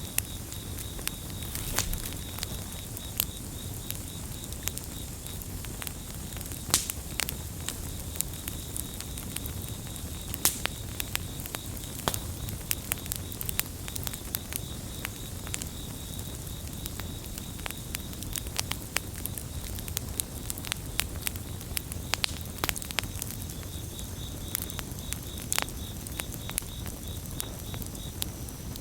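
Campfire burning with frequent sharp crackles and pops over a low steady rumble of flame. A cricket chirps in a fast pulsed trill behind it, dropping out for a few seconds now and then.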